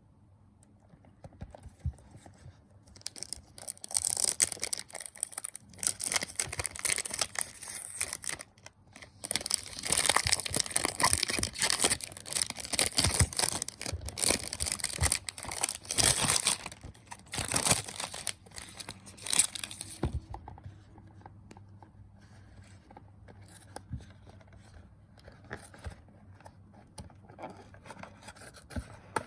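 Packaging of a perfume box being torn open and crinkled by hand, a dense scratchy rustle that runs for most of the first two-thirds. After that it gives way to quieter handling with a few light clicks.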